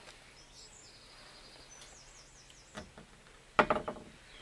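Faint high bird chirps with a short run of repeated notes about two seconds in, then a sharp click and rattle as the ammeter's test leads are handled and reattached, about three and a half seconds in.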